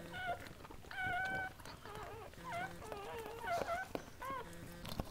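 Golden doodle dogs whimpering: a run of short, high cries that waver up and down, several overlapping, roughly one or two a second. A sharp click comes near the end.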